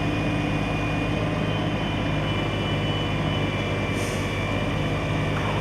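A large engine running steadily with a low, even hum and no change in speed.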